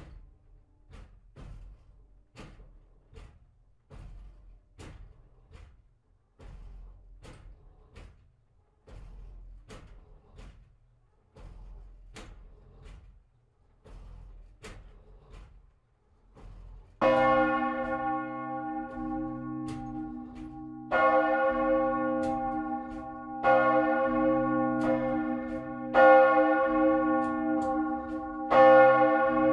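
A large church bell, the great bell, being swung up into full swing. For the first part there are only regular knocks, about one to two a second, with a low hum as the swing builds. About 17 seconds in, the clapper starts to strike, and the bell rings out loud with a rich, lingering tone, struck again about every two and a half seconds.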